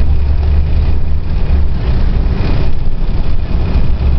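Transit bus heard from inside the cabin while driving: a steady deep engine and road rumble with a hiss over it.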